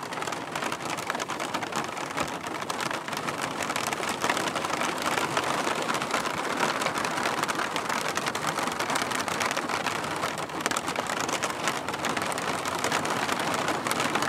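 Steady rain falling, with the ticks of individual drops landing close by; it grows slightly louder over the stretch.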